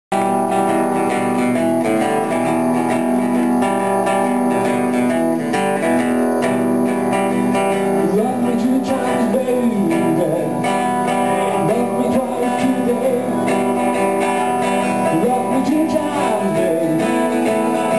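Acoustic guitar strummed and picked in a steady rhythm. About eight seconds in, a man's singing voice comes in over the guitar.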